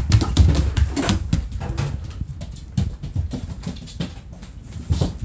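German shepherd moving about on a wooden floor: irregular clicks of claws with low thumps from a handheld camera being moved, busiest in the first second or so.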